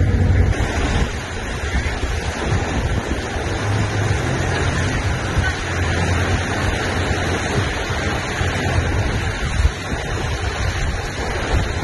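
Steady rushing of a shallow rocky river, with wind rumbling on the microphone.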